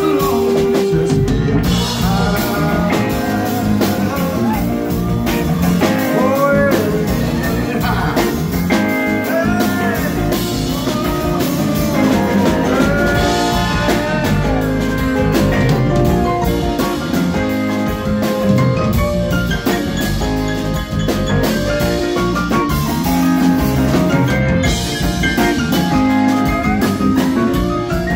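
Live funk band playing loudly: drum kit, electric guitar and keyboards, with a male singer, heard from the audience.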